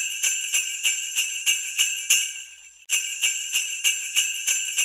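Jingle bells shaken in a steady rhythm, about four shakes a second. The jingling fades out about two and a half seconds in, then starts again.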